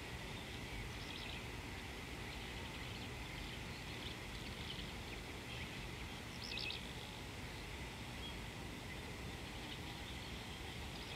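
Outdoor ambience of steady low background noise with faint, scattered bird chirps, and a brief quick cluster of chirps about six and a half seconds in.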